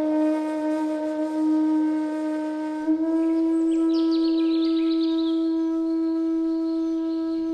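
Bansuri bamboo flute holding one long low note on D sharp, breathy and steady, nudging slightly higher in pitch about three seconds in. Faint high-pitched falling figures sound in the background around the middle.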